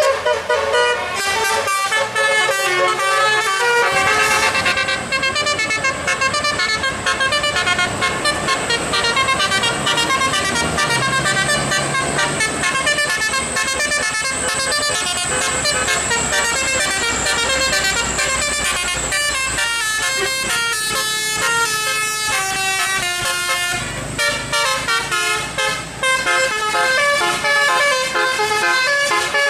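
Basuri 'telolet' musical air horn on a bus, with its trumpets mounted on the roof, playing a loud running melody of changing notes.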